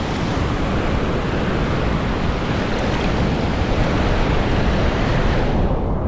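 Steady rush of shallow river water streaming over algae-covered rock, with wind buffeting the microphone. The higher hiss drops away near the end.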